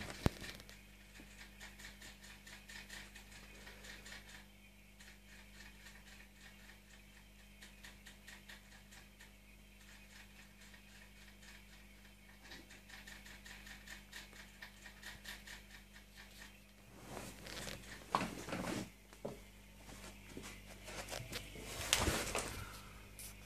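Aquarium aeration: a steady low hum with a fast, constant patter of air bubbles from the tank's bubble wands. Twice near the end, louder rubbing and knocks as the camera is handled and moved.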